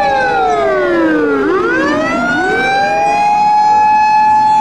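Fire truck siren wailing: a held high tone slides down over about a second and a half, then sweeps back up and holds, with a second overlapping copy of the slide just behind it.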